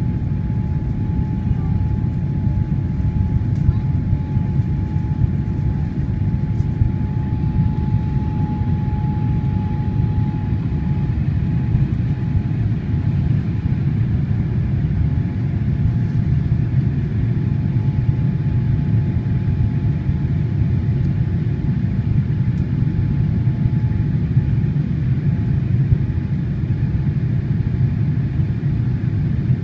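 Steady cabin noise of a Boeing 787 Dreamliner climbing after takeoff, heard from a seat over the wing: a deep rumble of engines and airflow. A faint steady whine runs through the first third and then fades.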